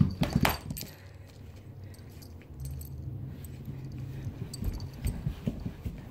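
A small toy ball and a cat's paws clattering and knocking on a hard floor, a quick cluster of sharp clicks in the first second, then scattered soft thuds as the cat moves close by.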